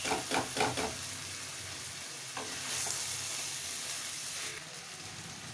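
Boiled cauliflower stalks, potato and brinjal sizzling in hot spiced oil in a kadai as they are stirred in, with several quick stirring strokes in the first second over a steady sizzle.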